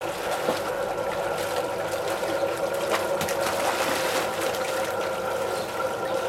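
Pool water splashing and sloshing as a cocker spaniel wades and a child kicks and swims through it, over a steady hum.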